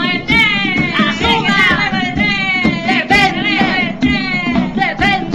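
Music with singing voices: a comic song with the voices carrying the melody over a steady accompaniment.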